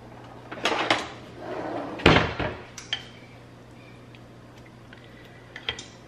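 Stainless-steel kitchen tongs clicking and clattering against a glass bowl of egg wash as a floured cutlet is picked up and dipped, with one louder knock about two seconds in. A low steady hum runs underneath.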